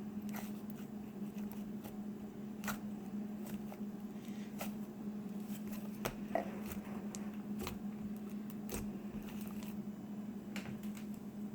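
Sticky homemade butter slime being pulled and handled by hand, giving irregular small clicks and crackles; it is sticky from too much glue. A steady low hum runs underneath.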